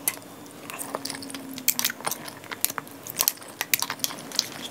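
Metal utensil scraping and tapping inside an opened tuna can while scooping out tuna, a run of small irregular clicks and clinks.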